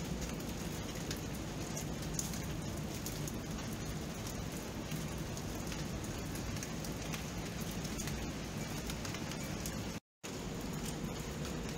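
Steady rain: an even hiss with scattered individual drops clicking over it. The sound cuts out completely for a split second about ten seconds in.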